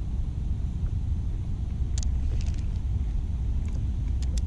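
Steady low rumble of wind buffeting the camera microphone, with a few faint, short clicks from the spinning reel being handled, about two seconds in and again near the end.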